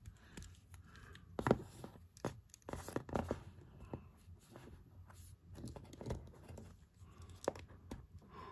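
A plastic action figure, the Hasbro Power Rangers Lightning Collection Omega Ranger, being handled while its limbs are posed: scattered light clicks and knocks of the plastic and rubbing of fingers on it, the strongest about a second and a half in and again around three seconds in.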